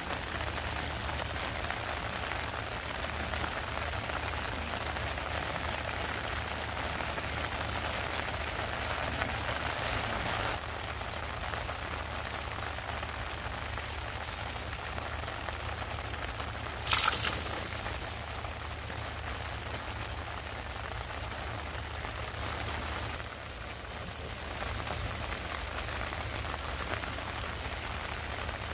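Steady rain falling on the river and gravel bank, an even hiss throughout. A brief sharp noise breaks in a little past halfway.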